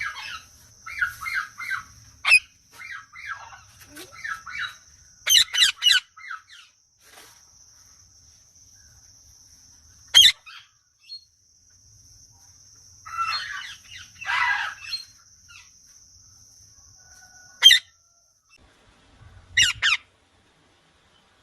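Indian ringneck parrots calling: runs of quick repeated chirps, then single sharp squawks at intervals, with a harsher rasping stretch midway.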